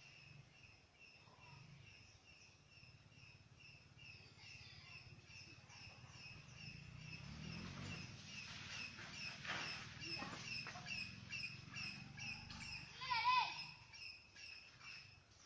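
Steady chirping, about three short high chirps a second, with some rustling, and a louder wavering call about thirteen seconds in.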